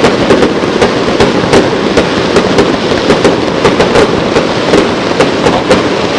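Fireworks going off in quick succession: a string of sharp bangs and crackles, several a second, over a continuous noisy din.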